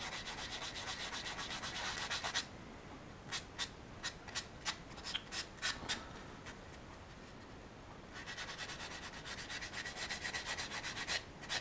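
Hand sanding of a small resin figure part with a sanding stick, rubbing away mold lines: a fast run of short back-and-forth strokes, then about ten separate swipes, a short pause, and another fast run of strokes near the end.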